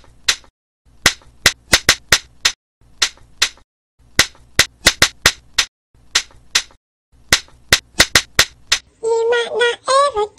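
Sharp percussive hits, like claps or slaps, in quick rhythmic clusters separated by short silences. Near the end a high-pitched voice comes in, singing.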